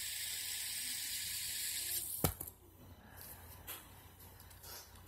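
A steady hiss that stops with a sharp click about two seconds in, followed by faint small clicks and handling sounds.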